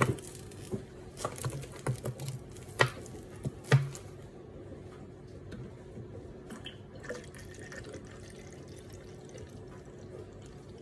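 Fizzy cola being poured from a large plastic bottle into a clear drinking bottle, a steady pour. A few sharp knocks and clicks from the bottles being handled come in the first four seconds, before the pour settles in.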